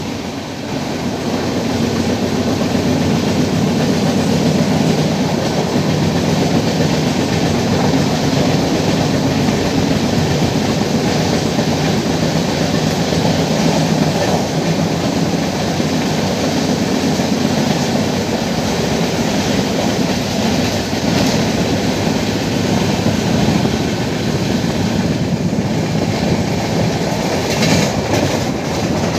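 Loud, steady running noise of a moving passenger train's wheels on the rails, heard at an open coach window, while a goods train's wagons pass close alongside on the next track. The sound shifts slightly near the end as the other train clears.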